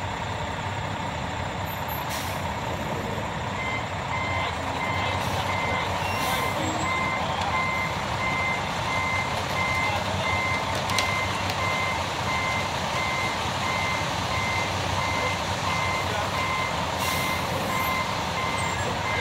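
Concrete mixer truck's engine running steadily during the pour, with its backup alarm beeping in a steady, evenly spaced series starting a few seconds in.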